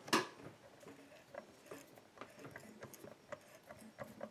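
A small hand tap being twisted into a plug in a lock cylinder's pin chamber, cutting a thread: faint, irregular clicking and ticking of metal on metal. A sharp click just after the start is the loudest sound.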